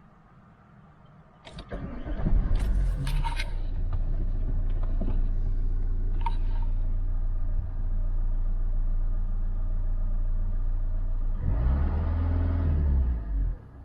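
2012 Vauxhall Insignia 2.0 CDTI four-cylinder turbodiesel started about a second and a half in, then idling steadily with a brief rev near the end. The turbo wastegate actuator vacuum hose has just been replaced, and the engine runs without its former buzzing noise.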